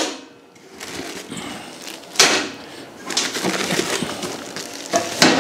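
Plastic parts bags and bubble wrap rustling and crinkling as hardware is unwrapped and handled, with a sharp crackle about two seconds in and another near the end.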